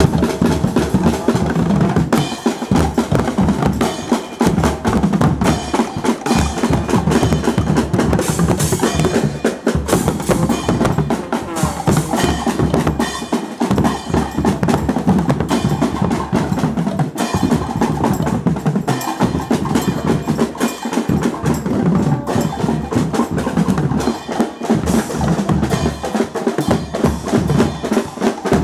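A street band's drum section playing loud, continuous percussion: snare drums, a bass drum and crash cymbals.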